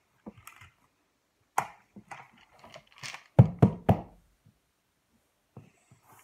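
Plastic toys being handled and set down on the floor: scattered clicks and knocks, with three heavy thuds in quick succession a little past halfway.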